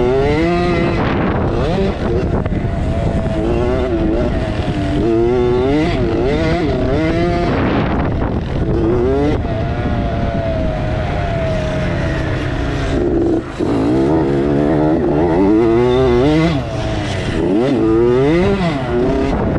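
Dirt bike engine heard close, from the camera rider's own bike, revving up and falling back again and again as the throttle opens and closes and gears change. Distant engines from the other bikes blend in underneath.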